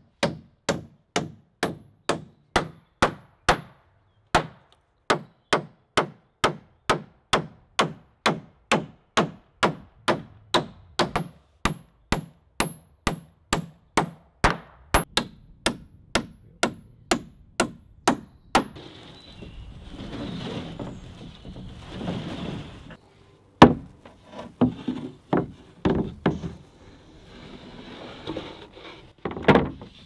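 Claw hammer driving nails into the overhead timber roof frame: a steady run of sharp blows about two a second, with a short break about four seconds in. The blows stop a little past the middle, followed by handling noise and a few scattered knocks, one of them the loudest of all.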